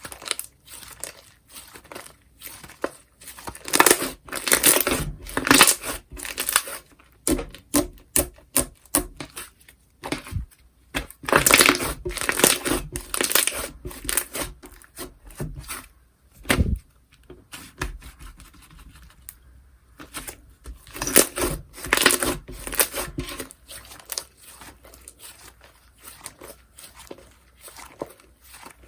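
Slime being squished, stretched and pulled apart by hand, giving crackling, tearing and popping sounds in three louder spells.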